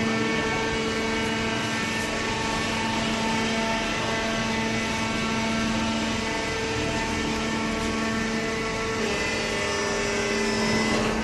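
Hydraulic cardboard baler's power unit running, a steady hum with a constant whine over it; the tone shifts slightly about nine seconds in.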